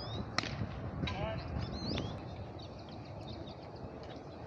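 A pitched baseball smacks into the catcher's mitt with a single sharp pop about half a second in, followed by a weaker click about two seconds in. Short swooping bird chirps sound in the background.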